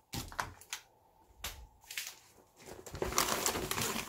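A shopping bag and packaging being handled: a few light knocks and clicks, then, from a little past halfway, a stretch of continuous rustling and crinkling as the bag is rummaged through.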